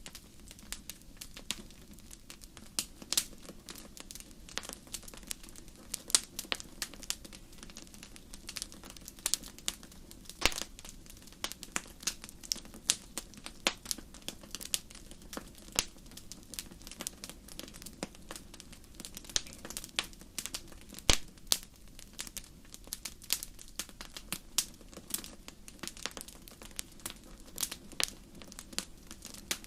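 Wood fire in a fireplace crackling, with many irregular sharp pops, a few louder than the rest, over a soft steady low background noise.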